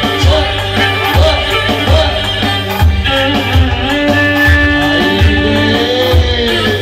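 Turkish Roman havası dance music: a lead melody line with bends and ornaments over a heavy, recurring drum beat.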